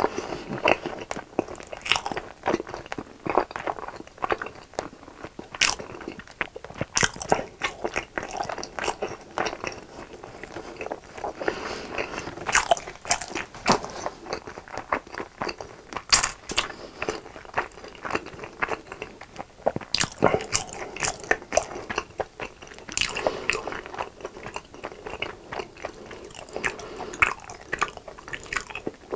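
A person chewing a mouthful of sauce-glazed chicken close to a clip-on microphone, with many sharp mouth clicks at an irregular pace.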